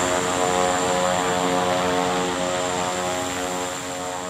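Twin-engine turboprop plane taxiing with its propellers turning: a steady, many-toned propeller drone over a high, thin turbine whine, easing off slightly near the end.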